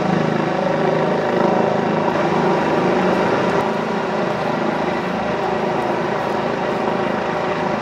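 Boeing 747-400 freighter's four turbofan engines running on the ground, a steady whine with several held tones over a broad rush.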